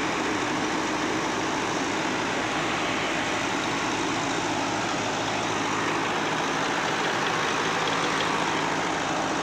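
Tractor-driven mobile rice mill running steadily while milling paddy: the Preet tractor's diesel engine under load, together with the mill's belts, fans and hulling machinery, makes one even, unbroken mechanical noise.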